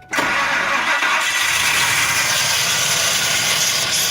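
2000 Ford Expedition being started just after a new starter was fitted: a loud, harsh, noisy sound cuts in suddenly at the start and runs on steadily, a noise the owners suspect comes from the flywheel.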